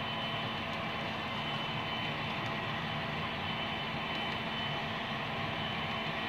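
HO-scale model container train running past on its track: a steady rolling hum of the wheels and motor, with a thin, steady high whine.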